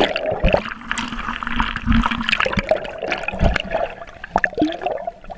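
Water churning and bubbling around a submerged action camera, with irregular muffled splashes and gurgles as the camera is jostled under the surface.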